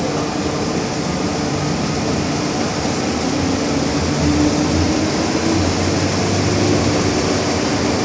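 Steady running noise heard inside an MTR M-Train subway car on the move: a broad rumble from wheels and track, with a low hum underneath.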